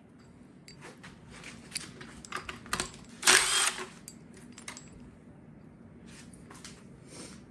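Small metallic clicks and clinks of spark plugs and hand tools being handled, with one louder half-second clatter about three seconds in.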